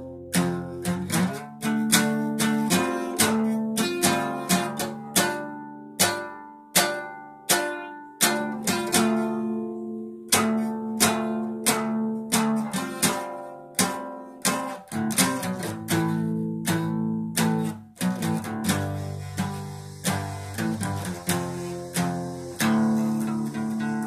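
Solo guitar playing: picked notes and chords struck one after another, each left to ring and die away, growing busier in the second half.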